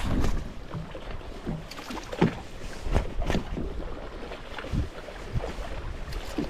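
Sounds from a small fishing boat on open water: a steady low rumble with irregular knocks and bumps, the loudest about two seconds in.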